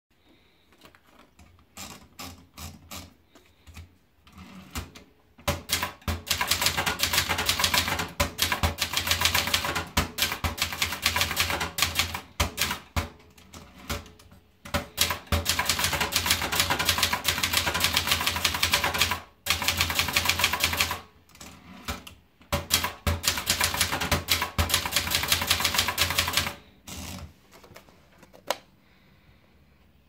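Brother Deluxe 220 portable manual typewriter: a few scattered clicks as paper is loaded, then keys struck in fast runs of sharp clacks with a few short pauses between runs, stopping a few seconds before the end.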